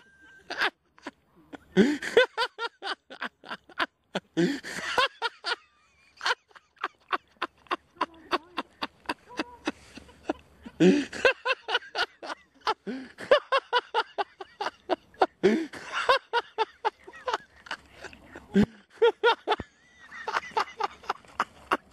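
Ducks quacking: many short, sharp calls in quick runs, several a second, with brief pauses between the runs.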